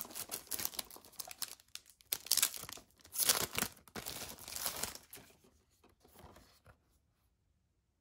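Clear plastic film on a DVD case being torn and crinkled by hand while it is pulled off, in crackling spurts that are loudest around the middle and die away after about five seconds.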